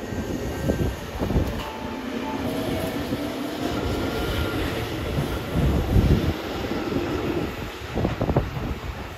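Tobu 8000 series electric commuter train accelerating away from a station platform: the cars rumble past as a traction-motor whine rises gently in pitch. A few heavy knocks come from the running gear about six and eight seconds in.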